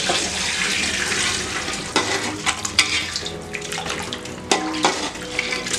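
Chicken-boiling broth poured from a vessel into a pot of spiced chicken: a steady rush of liquid for about two seconds, followed by a ladle stirring and clicking against the metal pot.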